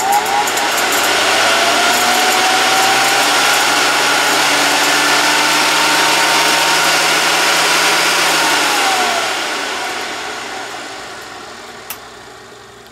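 Motor of an Airway Model 55A vacuum cleaner running on a Variac: its whine rises as it speeds up, holds steady with a rushing of air, then drops in pitch and fades as the power is cut and it spins down.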